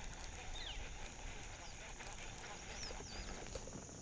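Birds calling faintly: a few short, high chirps, spread over a few seconds, above a low rumble of outdoor noise.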